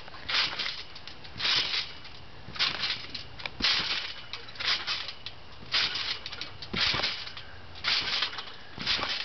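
Backyard trampoline springs and mat creaking under a person bouncing, a burst of spring noise about once a second.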